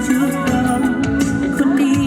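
Live band music: drums, bass and sustained keyboard or guitar lines playing steadily in a concert mix.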